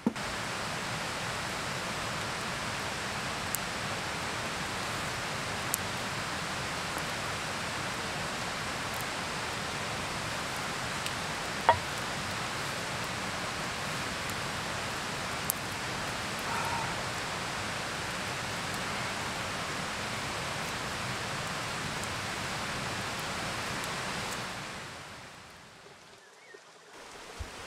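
Wood campfire burning: a steady hiss broken by a few sharp pops of burning wood, the loudest about halfway through. It fades out near the end.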